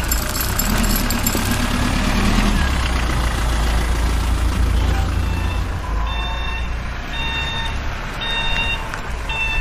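A low engine rumble, then from about five seconds in a reversing alarm beeping at an even pace, roughly once a second.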